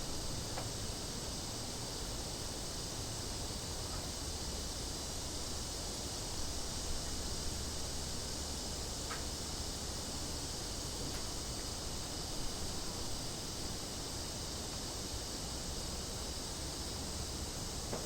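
A chorus of cicadas buzzing as a steady, unbroken high drone, over a low steady rumble.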